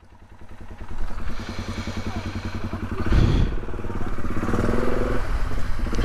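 Polaris off-road vehicle's engine running with an even pulsing beat. It picks up about a second in and surges briefly around three seconds in.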